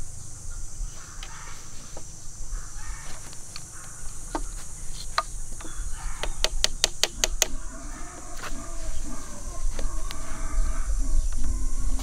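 Green bamboo poles being handled and fitted together, with scattered clicks and a quick run of about six sharp knocks a little past the middle, over a steady high hiss. In the second half, low calls like hens clucking.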